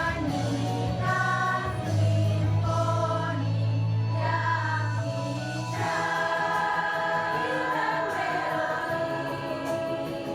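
A choir of teachers singing in parts, with held notes changing every second or so over a low sustained accompaniment.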